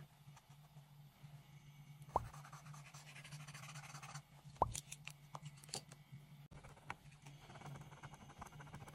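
Paint marker tip scratching across paper in short strokes, faint, with two sharp knocks about two and a half seconds apart over a low steady hum.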